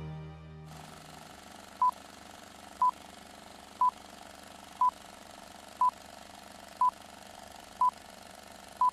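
The tail of soft background music cuts away, then a steady hiss with short electronic beeps of one pitch, one every second, eight in all.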